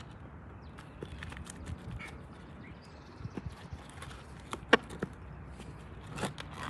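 Irregular knocks, clicks and scrapes of hands and tools working on a shingle roof, with one sharp knock a little past the middle.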